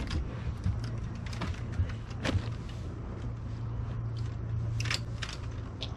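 Steady low hum of a bass boat's electric trolling motor, with scattered sharp clicks and taps throughout.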